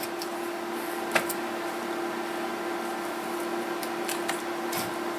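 A few light clicks and taps from handling the open case and internal parts of a vintage Philco Ford portable radio, with a steady low hum underneath.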